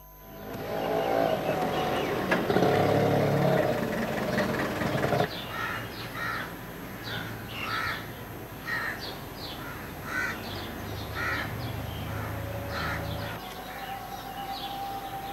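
Crows cawing again and again, a short call every second or so, over a low steady hum. Before them, for the first five seconds, comes a louder droning sound of several steady pitches that cuts off suddenly.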